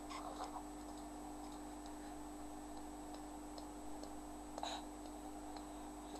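A baby's soft, scattered hand claps, heard as a few faint ticks over a steady low hum.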